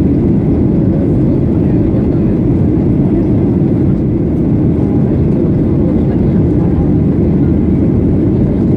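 Steady, even low rumble of a Boeing 737-800 in flight, heard from inside the cabin: its CFM56-7B turbofans and the airflow over the fuselage droning without change.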